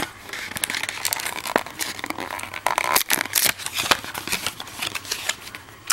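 Hands opening a small cardboard box and handling its plastic wrapping: irregular crinkling and rustling with many small clicks.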